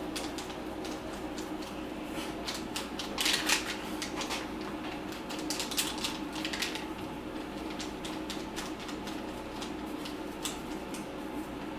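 Irregular light clicks and taps, with a louder scraping flurry about three seconds in, as a ball is pressed and rolled over a textured traction pad to stick it down. A steady low hum runs underneath.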